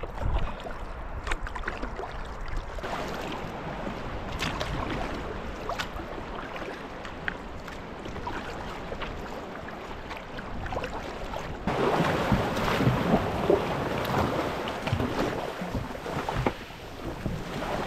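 Kayak paddle strokes splashing, with water against the hull and wind on the microphone. About twelve seconds in the sound suddenly gets louder as waves wash around the kayak while it runs into the surf at a beach.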